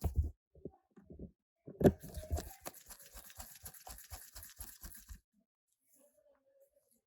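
Small repair tools working on a Samsung Galaxy A50's frame and parts during reassembly: irregular clicks, taps and light scrapes, with a sharper click about two seconds in, stopping about five seconds in.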